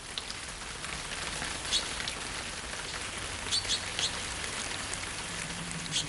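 Forest ambience: an even, rain-like hiss, with a few short, high bird chirps, two of them close together about three and a half seconds in.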